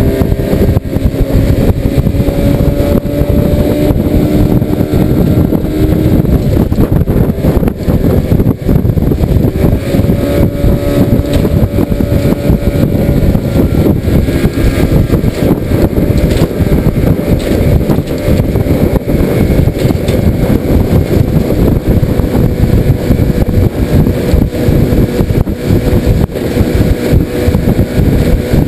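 Outboard motor running steadily, pushing a small aluminium skiff along at a constant speed, with a dense low rumble under its engine note.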